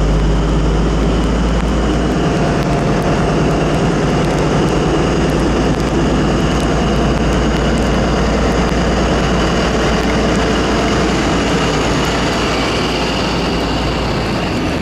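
British Rail Class 43 HST power car pulling away under power, its diesel engine running loud and steady with a whine over it, as the power car passes close and the Pullman coaches start to roll by.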